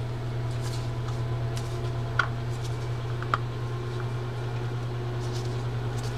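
Steady low hum of room noise, with a couple of light clicks from the plastic housing and side plate of a spinning reel being fitted together by hand.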